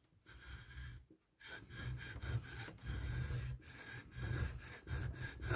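An axe blade rubbed back and forth on a Parkside 2-in-1 sharpening stone, a gritty rasp in short strokes about two to three a second, with a brief pause about a second in.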